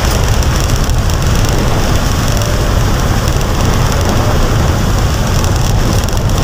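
Heavy rain pouring down: a loud, steady wash of noise with a deep continuous rumble underneath.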